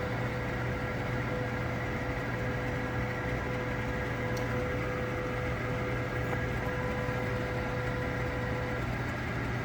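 Christie Roadster projector running while warming up its lamp: a steady fan noise and electrical hum, with a steady mid-pitched tone that stops shortly before the end.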